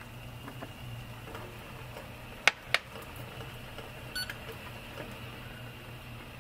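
Two sharp clicks about two and a half seconds in, then a short electronic beep from the digital coffee scale as a finger presses its button, over a steady low hum.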